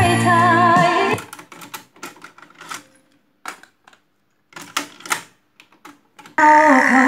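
Music from a Pioneer CT-W511R cassette deck stops about a second in. Several seconds of irregular mechanical clicks and clatter from the deck's tape transport follow as it skips to the next song. Music starts again near the end.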